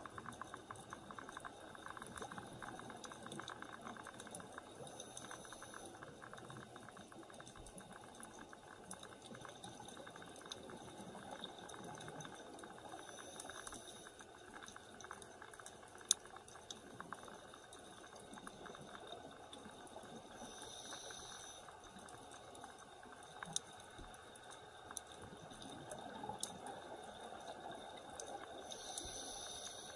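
Faint underwater ambience: a steady fine crackle of clicks, broken by a few short bursts of bubbling from a scuba diver's exhaled breath.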